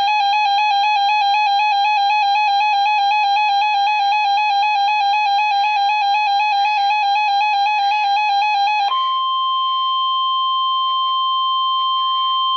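Electronic alert tone warbling rapidly around 800 Hz, which about nine seconds in switches to a steady single tone near 1 kHz: the 1050 Hz NOAA Weather Radio alert tone that comes before the Required Weekly Test announcement.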